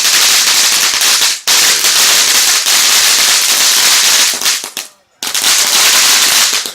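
TNT 'Pink Bling' firework fountain giving off a loud, dense crackle. The crackle breaks off briefly about a second and a half in, and again for a moment about five seconds in.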